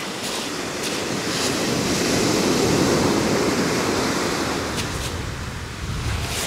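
Small waves breaking and washing up a shingle beach. The surf swells to its loudest about two seconds in, then eases away.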